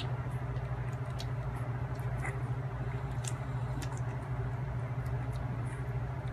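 Newborn puppies nursing, with small suckling and smacking clicks scattered over a steady low hum.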